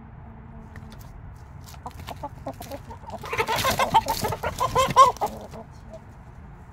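Chickens clucking close to the microphone: a run of short clucks that thickens into a louder, busier burst of calls in the middle, then tails off.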